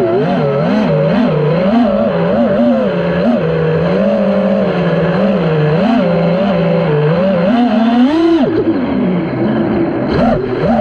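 A 5-inch FPV quadcopter's brushless motors (Emax Eco 2306 1700kv on 6S, turning T-Motor 5150 props) whining, the pitch rising and falling quickly with each throttle change. About eight seconds in the whine climbs sharply, then drops to a low, quieter hum before it rises again near the end.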